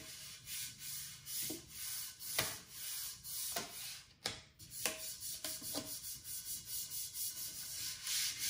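Hand rubbing an adhesive build-surface sheet down onto a 3D printer's heated bed, smoothing it into place. A run of dry rubbing strokes, quicker and more even in the second half.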